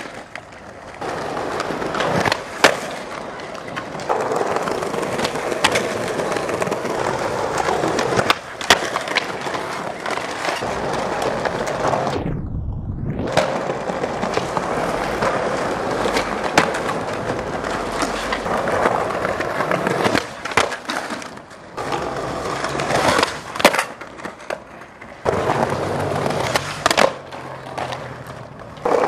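Skateboard wheels rolling over concrete, with the sharp pops of the tail and the clacks of the board and wheels landing as tricks are done again and again.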